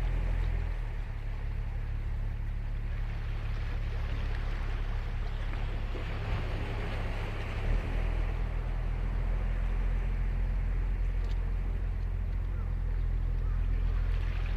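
Ocean surf breaking and washing up the beach, a wash of surf swelling about six seconds in and fading, over a steady low rumble.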